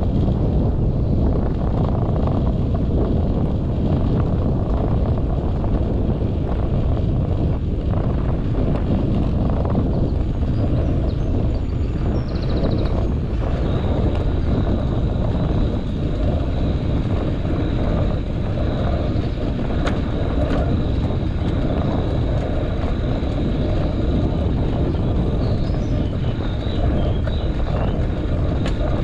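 Wind buffeting and road rumble on the microphone of a handlebar-mounted action camera on a moving bicycle: a steady, heavy low rush with a few sharp knocks from bumps in the road.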